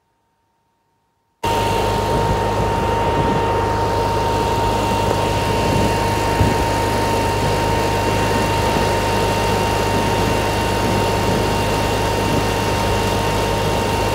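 An engine running steadily at one unchanging pitch, with a low hum and a thin whine over it. It starts abruptly about a second and a half in.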